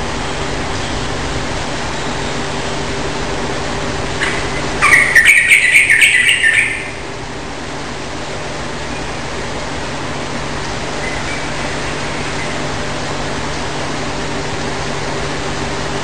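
Yellow-vented bulbul (trucukan) singing one loud, rapid string of notes, starting about four seconds in and lasting about two and a half seconds, over a steady hiss with a low hum.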